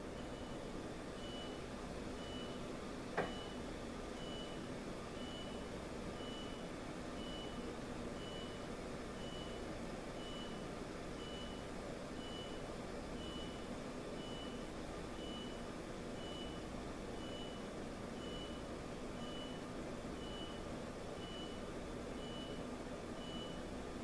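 Faint high-pitched electronic beep repeating about once a second, over a low steady hum, with a single sharp click about three seconds in.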